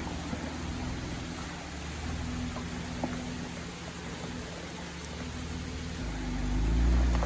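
Jeep Wrangler JK engine running low and steady under a hiss of noise, then building up about six seconds in as the Jeep gets going for another attempt at the slippery climb.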